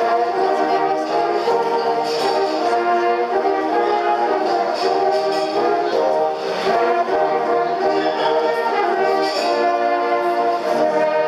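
A horn corps, an ensemble of brass horns, playing a piece in sustained chords.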